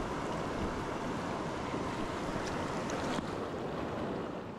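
Steady rush of the Frying Pan River's current, with a faint click about three seconds in.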